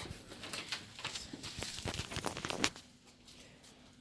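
Rustling and light knocks of a wrapped present being handled, lasting a little under three seconds and then falling quiet.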